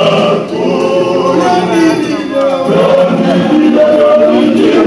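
A group of voices singing together, several lines of melody at once.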